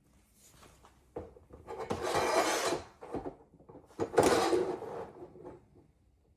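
Mounting hardware being handled: two scraping slides of about a second each, with knocks and clicks between them.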